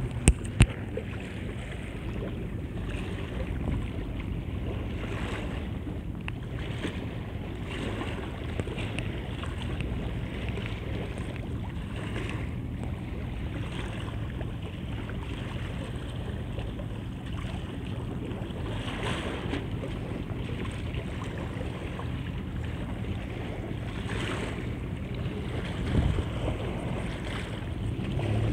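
Small river waves lapping and washing on the shore, with wind buffeting the microphone over a steady low hum. Two sharp clicks sound just after the start.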